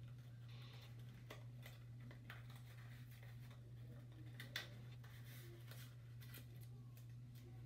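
Faint, scattered ticks and crinkles of hands handling clear sticky tape over a steady low hum, with one sharper tick about four and a half seconds in.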